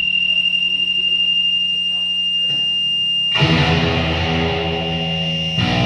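Distorted electric guitar through an amplifier. It opens with a steady high whine over a low hum; about three seconds in a loud distorted chord comes in and rings for about two seconds, cuts off briefly, and starts again at the end.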